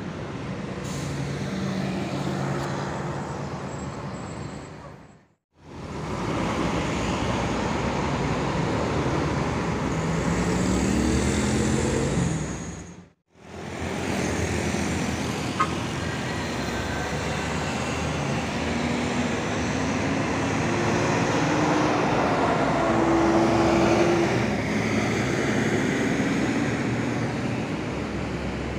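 Diesel buses pulling away through road traffic, their engine notes rising as they accelerate. The sound cuts out briefly twice where shots are joined.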